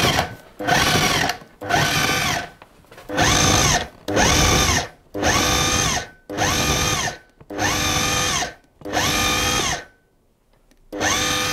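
Food processor motor pulsed in short bursts of about a second each, about eight in a row, each rising in pitch as the blade spins up, then cutting off; a longer pause comes near the end before the next pulse. The blade is chopping cold diced butter into flour until the mix forms rough breadcrumbs, the rubbing-in stage of shortcrust pastry.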